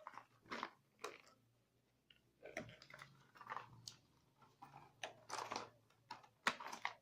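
Plastic packaging crinkling and rustling in short, irregular bouts as trimmer accessories are handled, with a near-silent gap about two seconds in.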